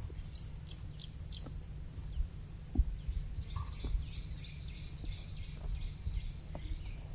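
Small birds chirping busily over a low rumble, with a few sharp crunches from plains zebras cropping grass close by.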